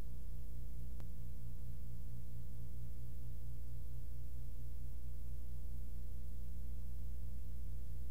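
Steady low electrical hum with a thin, higher steady tone and faint hiss, with one faint click about a second in.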